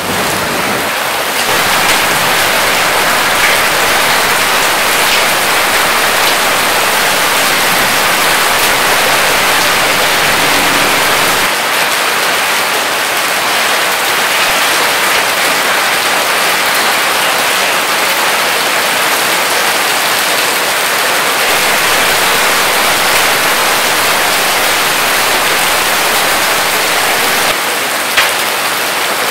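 Hail mixed with heavy rain pelting stone paving slabs: a dense, steady hiss of countless small impacts, with one sharper tick near the end.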